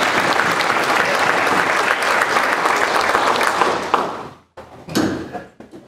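Audience applauding, a dense patter of many hands clapping that dies away after about four seconds.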